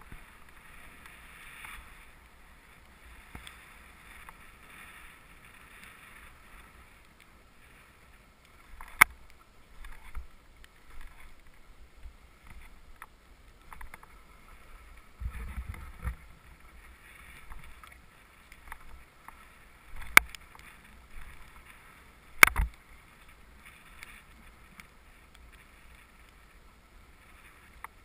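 Steady hiss of snow sliding under the camera wearer's skis or board on a groomed run, with a few sharp knocks, the loudest about a third of the way in and two more about three quarters of the way through.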